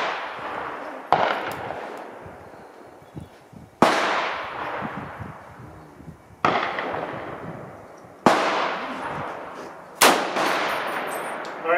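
M1A Loaded .308 semi-automatic rifle with a stainless Krieger barrel fired five times, spaced roughly two to three seconds apart. Each is a sharp crack followed by a long echoing decay.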